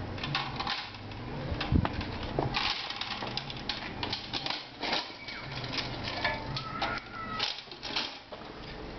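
An aluminium three-wheeled folding cart is being folded by hand: a run of irregular clicks, knocks and rattles from its metal frame and hinged panels.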